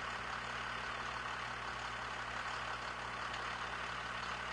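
5.9L Cummins diesel engine idling steadily while an injector fuel line fitting is cracked open to purge air from the fuel system after an injection pump replacement.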